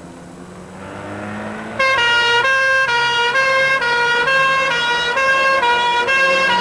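Two-tone emergency-vehicle horn alternating steadily between two pitches. It cuts in suddenly about two seconds in, over the low sound of passing traffic.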